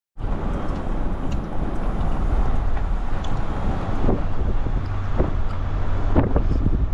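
Car moving slowly on a paved road, with a steady low engine and tyre rumble. A few short knocks come about four, five and six seconds in.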